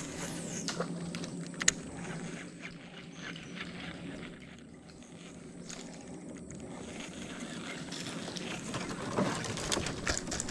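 Baitcasting fishing reel in use from a small boat: a quick falling whir as a cast pays out line just after the start, then scattered clicks and light knocks of the reel and rod, over a low steady hum that fades after the first few seconds.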